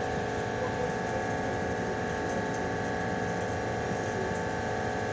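Steady drone of cargo-ship machinery: a low rumble with a whine of several fixed tones above it, unchanging throughout.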